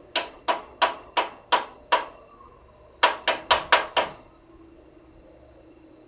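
A lump of garlic bread burnt hard as charcoal is knocked against the inside of a microwave oven. There are six evenly spaced, sharp ringing knocks, then after a short pause five quicker ones. The hardness of the knocks shows how completely carbonised the bread is. A steady high chirring of insects runs behind.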